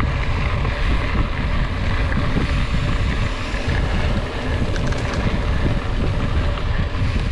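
Wind buffeting the microphone over the rumble of a mountain bike's tyres rolling along a dirt track, with a few faint clicks and rattles from the bike.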